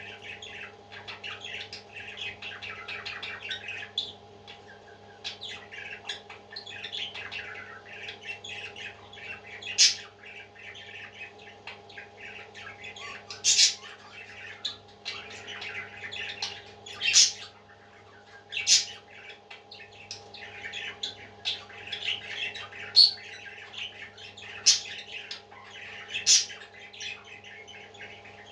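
Parrots chattering and cheeping continuously, with about seven loud, sharp squawks standing out from about ten seconds in. A steady low electrical hum runs underneath.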